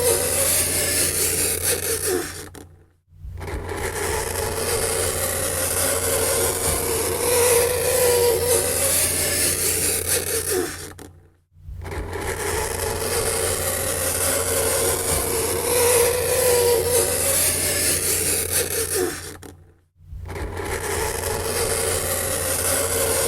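Fingernails scraping across a chalkboard, a continuous grating scrape with a wavering tone, played as a repeating loop that breaks into short silences about three, eleven and a half and twenty seconds in.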